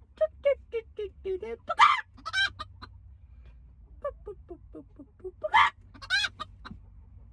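Chicken cackling: a run of short clucks, about four a second, builds into two loud squawks. The whole pattern comes twice.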